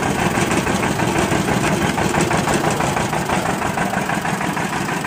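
Sugarcane juice crusher running, its rollers driven by a small stationary engine with a flywheel. The engine runs steadily with a fast, even beat while a stalk of cane is fed through the rollers.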